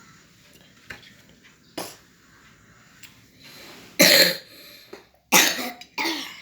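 A child with a cough from an illness coughing: one short cough about two seconds in, then three loud coughs in the last two and a half seconds.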